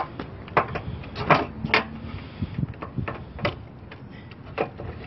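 Irregular plastic clicks and knocks as a corner light housing is worked loose from the front corner of a 1990 Honda EF hatchback, with the sharpest knocks a little over a second in, just before two seconds and about three and a half seconds in.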